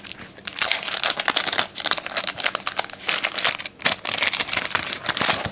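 Plastic trading-card pack wrapper crinkling as it is handled and opened, a dense run of rapid crackles starting about half a second in.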